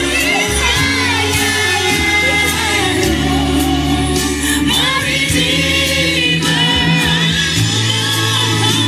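Gospel music: singing voices over held bass notes and a steady drum beat.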